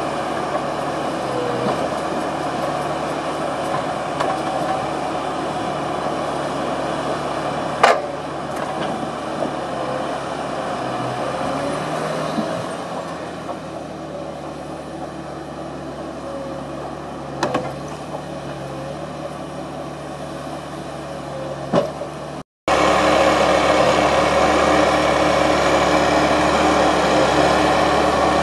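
Timberpro TF840B tracked forwarder's diesel engine running steadily as the boom and grapple work, with a few sharp knocks about a third of the way in, past halfway, and near the end. The sound breaks off for a moment near the end and comes back louder and closer.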